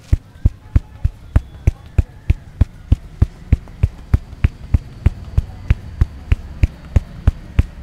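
Barber's hands working a man's head in a head massage: sharp, evenly spaced strokes about three a second, each a short thud.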